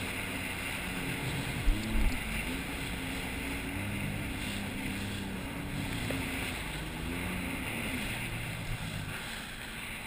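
Sea-Doo personal watercraft engine running at speed, its pitch rising and falling as the throttle changes, over a rush of water and wind. A couple of short thumps come about two seconds in.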